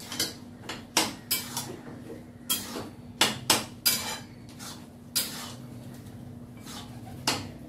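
A spoon stirring curry in a kadai, clinking and scraping against the pan: about a dozen sharp knocks at an uneven pace, over a steady low hum.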